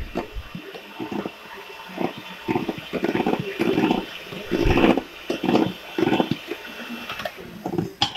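Electric hand mixer running in a stainless steel bowl, its beaters churning chocolate ganache into whipped cream for mousse. A thin steady motor whine sits under an uneven churning sound that swells and fades.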